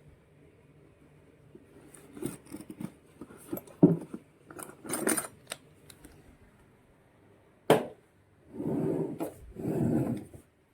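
Hand tools and parts being handled during repair work: scattered clicks and knocks, one sharp knock about three-quarters of the way through, then two longer scraping rustles near the end.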